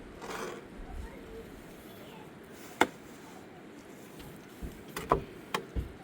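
A few sharp knocks: a single one about three seconds in, then a quick cluster of three or four near the end.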